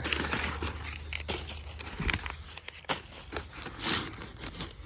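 Packaging being handled and pulled open: irregular crinkling and rustling with a few sharper knocks.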